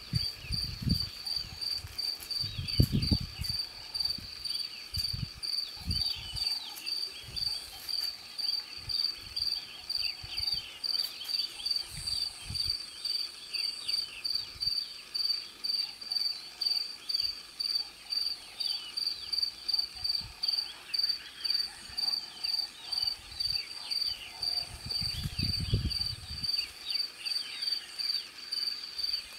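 Cricket chirping in a steady, even pulse of about two chirps a second, with birds chirping faintly behind it. There are a few low thumps on the microphone near the start and near the end.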